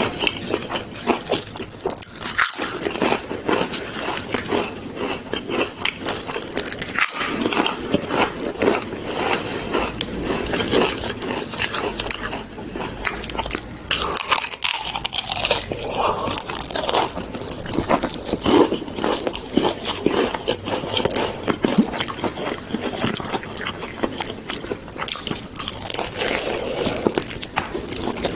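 Close-up crunching and chewing of crispy fried chicken: dense crackling bites of the fried coating and wet, continuous mouth sounds.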